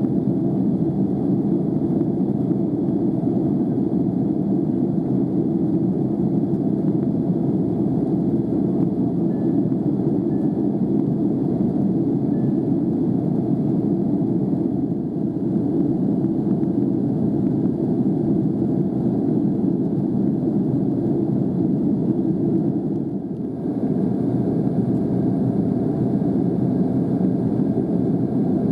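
Steady low rumble of airliner cabin noise from the engines and air system, with a brief dip near the end.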